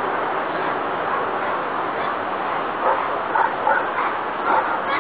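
A Bouvier des Flandres barking in short, excited yelping barks, several a second from about halfway through, over a steady hiss.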